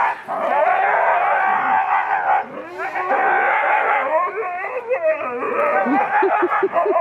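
A team of excited racing dogs, held back on their line at a start, yelps and howls in a continuous wavering chorus, with a run of quick short yelps near the end. This is the typical pre-start clamour of working sled dogs eager to run.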